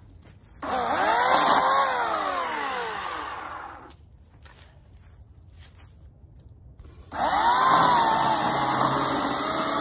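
Homelite 14-inch 9-amp electric chainsaw motor: it whirs up sharply when the trigger is pulled, then winds down over about three seconds once it is let go. About seven seconds in it starts again and keeps running as it cuts into a fallen locust log, its pitch dropping and then holding steady.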